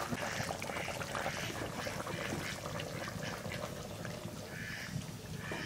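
Chitol fish curry bubbling in a pot after water has been added, with an animal giving several short calls over it.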